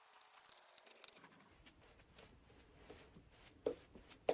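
Shaving brush working hot lather onto the face: faint, soft crackling and swishing of bristles and foam, with a couple of sharper clicks near the end.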